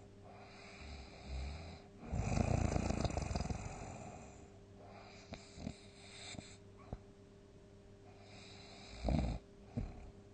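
A person snoring: one long, loud snore about two seconds in, then a few faint clicks and two short bursts near the end. A faint steady hum runs underneath.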